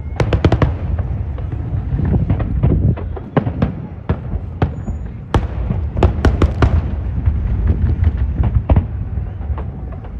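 Fireworks display: rapid sharp bangs and crackles in clusters, a dense burst at the start and another about six seconds in, over a continuous low rumble.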